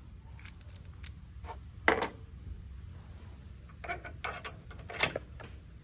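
Metal clicks and taps of a hitch receiver lock pin being slid through the truck's hitch receiver and its lock head fitted on. A few scattered clicks, the sharpest about two seconds in and another near the end.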